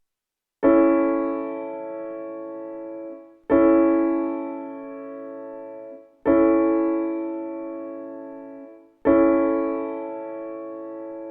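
Piano playing four chords in turn, each struck once and held for about two and a half seconds as it fades, demonstrating the sound of major and minor chords.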